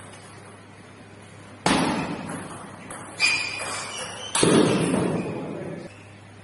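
Table tennis rally: three sharp, loud hits of the ball off the bats, each echoing in the hall.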